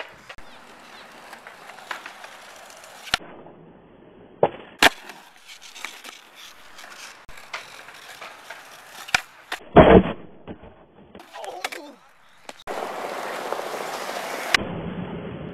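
Skateboard wheels rolling on concrete, with the sharp crack of board pops and landings several times. The loudest is a heavy board impact about ten seconds in. Near the end there is louder, steady wheel roll.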